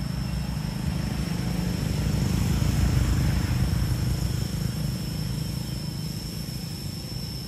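A motor vehicle passing on the road: a low engine rumble with tyre hiss that swells to its loudest about three seconds in and then fades away. A steady thin high-pitched tone runs underneath.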